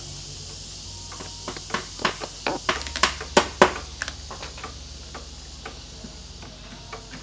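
A quick, irregular run of sharp clicks and knocks, loudest around the middle, as a person crouched at the floor handles things close by. A steady high insect hiss runs underneath.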